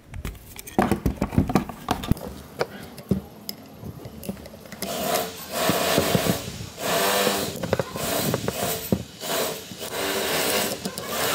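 A screwdriver working on an old electric fan motor's metal housing on a wooden bench. First come a run of sharp metallic clicks and knocks as the motor is shifted and pried, then from about five seconds in a continuous scraping and rubbing of tool and metal.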